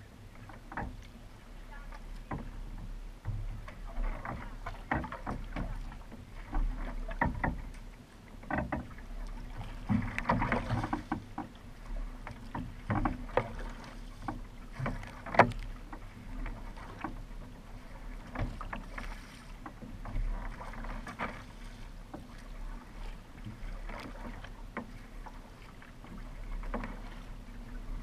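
Kayak paddle blades dipping and splashing into the water stroke after stroke, in an uneven rhythm over a low steady rumble. The sharpest splash comes about halfway through.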